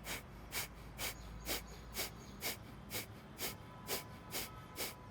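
Kapalabhati breathing: quick, forceful exhalations through the nose, each a short puff of air pushed out by the belly, about two a second, eleven in a row.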